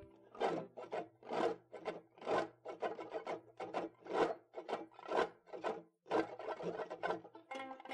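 Rhythmic rasping scrapes, about two a second, each a short hissy stroke. A low held tone fades out under them in the first couple of seconds.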